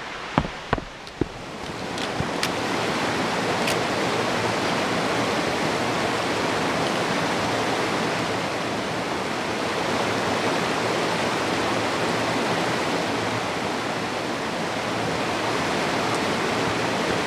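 A few footsteps on a dirt trail in the first second or so, then the steady rush of a small river cascading over bedrock, swelling to full strength about two seconds in and holding.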